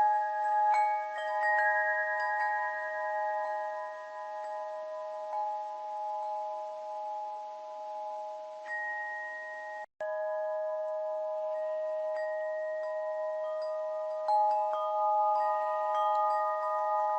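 Bell chimes ringing softly in several overlapping, long-sustained tones, with new notes struck at irregular intervals. The sound cuts out for an instant about ten seconds in.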